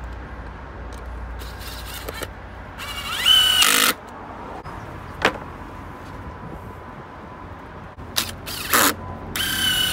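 Worx cordless drill driving deck screws into stacked pallet-wood slats: the motor spins up with a rising whine and runs for about a second around three seconds in, then again near the end, with a couple of short whirrs just before.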